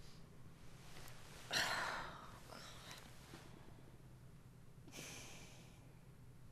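A sleeping woman breathing: a sudden, loud sigh about a second and a half in, fading over half a second, and a softer breath near five seconds, over a faint steady room hum.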